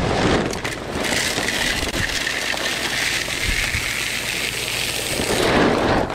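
Dried shelled corn pouring into a plastic bucket deer feeder: a steady rush of kernels that stops near the end.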